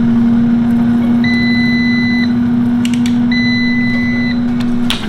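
Instant Vortex Plus air fryer oven reaching the end of its cook cycle: the appliance runs with a loud steady hum while it sounds two one-second beeps, the done signal. The hum stops with a click near the end.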